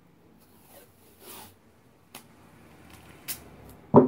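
A roll of blue painter's tape being handled: soft rustling and a couple of light clicks, then a short, louder knock near the end as the roll is set down on the table.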